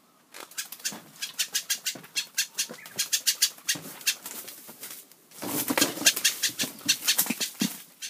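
A big trapped bird flapping its wings in quick, repeated beats, with a louder, denser flurry from about five and a half seconds in to near the end.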